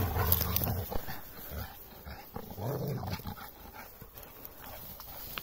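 Two dogs at rough play, with a low growl at the start and another about two and a half seconds in.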